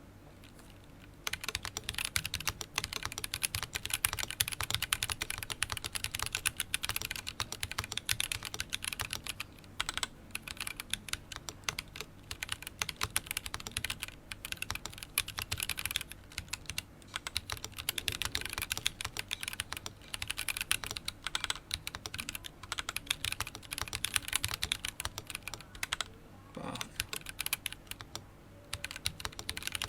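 Continuous typing on a KBDfans D45 mechanical keyboard with Boba U4T tactile switches and JTK Hyperfuse keycaps: a rapid, steady stream of key clicks, starting about a second in and pausing briefly a few times.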